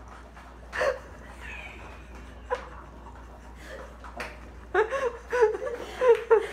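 Laughter in quick, rhythmic high-pitched peals starts about three-quarters of the way through. Before it there are only a few faint knocks and rustles.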